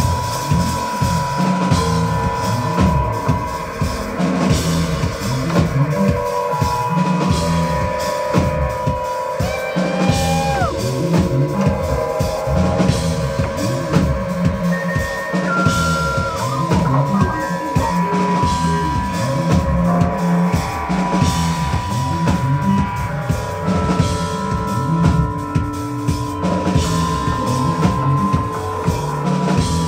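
Instrumental post-rock band playing live: drum kit keeping a steady beat under a repeating bass line, with a long held tone and a few short sliding guitar or keyboard notes above.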